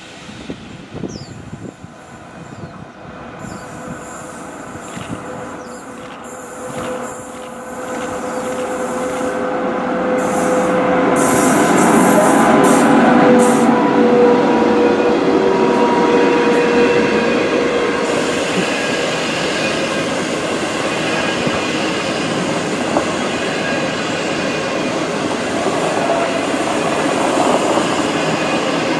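SS8 electric locomotive hauling a passenger train past, growing steadily louder as it approaches. A steady whine rides over the rolling noise about a third of the way in, and the loaded coaches keep rumbling by on the rails after it.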